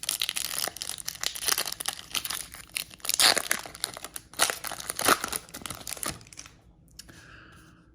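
A baseball card pack's wrapper being torn open and crinkled by hand, a dense crackling with sharp rips that stops about six seconds in.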